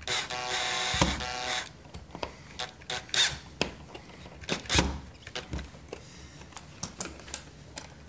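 Makita cordless drill-driver running for about a second and a half at the start, driving a switch mounting screw into the electrical box. Scattered sharp clicks and taps follow as the screw and switch are handled.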